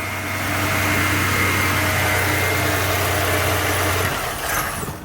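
2006 Chevrolet Impala's 3.5-litre V6 idling steadily, then shutting off abruptly about four seconds in. It runs only while its torn-up engine ground wires are held together by hand and dies the moment they are let go, the sign of a broken ground connection from battery to engine.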